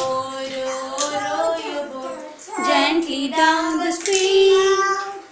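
Young children singing a song, in several phrases with a long held note near the end.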